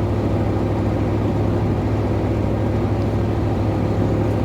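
Truck engine running steadily with an even low drone.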